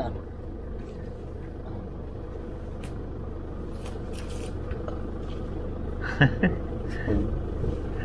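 Strong wind buffeting the microphone, a steady low rumble, with faint rustles as a large woven rug is shaken out and folded. A short voice sound comes about six seconds in.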